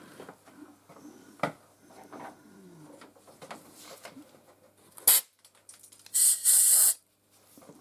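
Small workshop handling knocks and a sharp click, then a brief hiss and a longer, louder hissing burst lasting under a second, like a spray or air blast.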